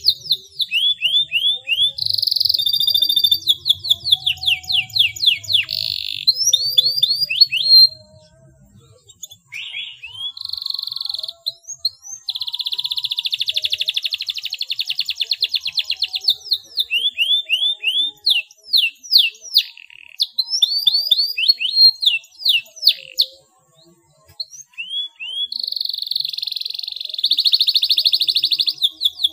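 Domestic canary singing a clear rolling song of rapid trills and fast repeated notes with quick upward and downward sweeps, breaking off twice for about a second.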